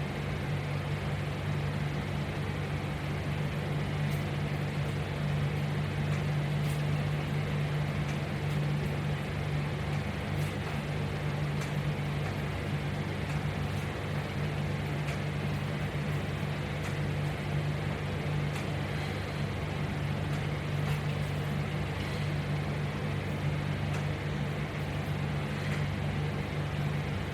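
Steady low background hum with an even hiss, unchanging throughout, with a few faint ticks; no distinct sounds of the exercise stand out.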